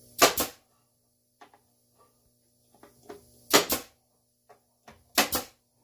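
Pneumatic brad nailer firing three times, tacking brads into wood, each shot a sharp double crack: one near the start, one about halfway, one near the end. Faint clicks of handling between the shots.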